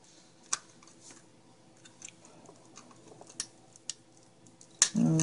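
A few sparse, light clicks and taps of a screwdriver and the plastic shell of an optical mouse being handled while the mouse is taken apart.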